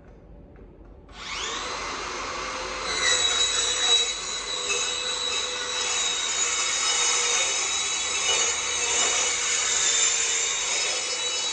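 Handheld circular saw starting up about a second in, then cutting through a stone-coated galvalume steel roofing panel from its uncoated back face: a steady high-pitched metal-cutting whine that gets louder from about three seconds in.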